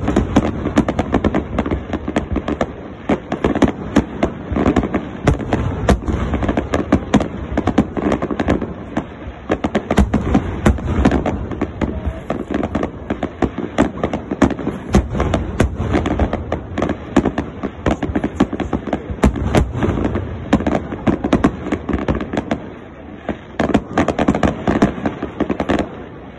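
Aerial fireworks display going off in rapid, continuous succession, overlapping bangs and crackles. The barrage eases briefly near the end before a few more bangs.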